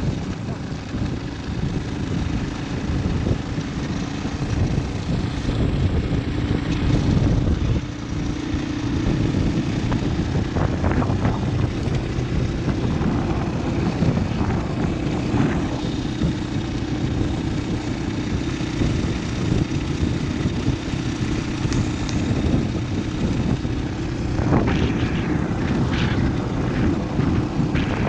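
Motorcycle engine running steadily while riding, heard from the bike itself, with wind rushing over the microphone.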